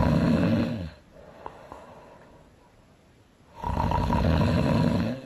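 A person snoring loudly: two long, rattling snores about three and a half seconds apart, with quiet breathing and a few small mouth clicks in the gap between them.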